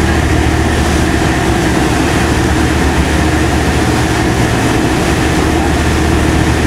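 Passenger ferry's engines droning steadily, heard from aboard: a constant deep hum with a few held tones above it over an even rushing noise.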